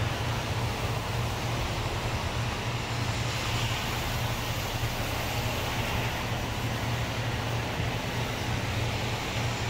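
Steady low hum with a constant background hiss, unchanging throughout, with no distinct events.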